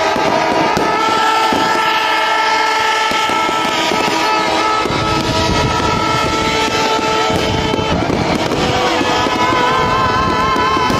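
Fireworks crackling and popping, the crackle growing dense about halfway through. Under it runs a steady blare of several held horn-like tones, which start to waver in pitch near the end.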